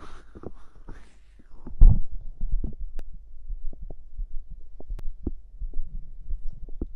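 Stomach gurgling after drinking cider: low thuds and rumbles with scattered sharp clicks, the loudest thud coming about two seconds in.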